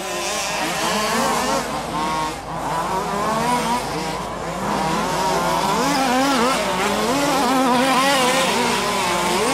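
Engines of several large-scale RC off-road buggies racing together, their overlapping pitches constantly rising and falling as they rev up and back off.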